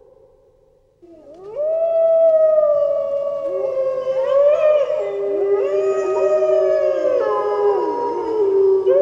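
A wolf pack howling in chorus: several overlapping, long, pitched howls that rise and fall, beginning about a second in after a near-silent pause.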